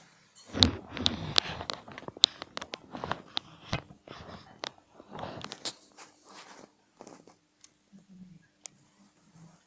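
Camera handling noise: irregular sharp clicks and rustling rubs, loudest and thickest in the first couple of seconds, then thinning to scattered taps. A faint steady low hum sits under it from about halfway on.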